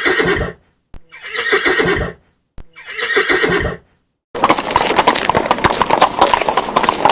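Horses whinnying three times in short calls of about a second each. Then, from about four seconds in, a herd of horses galloping: a rapid, continuous clatter of hooves.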